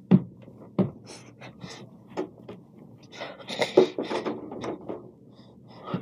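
Movement noise from someone moving about close to the phone: a few dull thumps in the first couple of seconds, then a stretch of rustling about halfway through.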